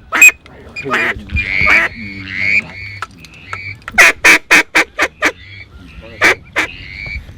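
Mallard hen-style quacking: scattered single and drawn-out quacks, then a fast run of about five loud quacks about four seconds in, and a few more near the end.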